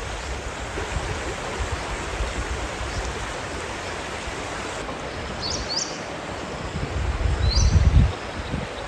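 Steady hiss of water, with a few short high chirps past the middle and a low rumble that swells near the end.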